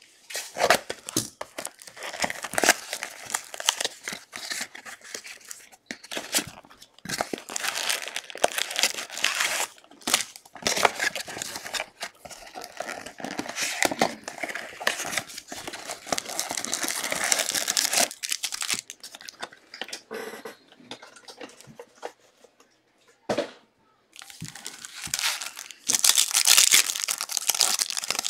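Plastic wrap crinkling and a cardboard trading-card box being torn open by hand, a sealed 2022 Bowman University football box being unwrapped, then its wrapped packs handled. The rustling comes in bursts, with a quieter lull about two-thirds through, and loud crinkling again near the end.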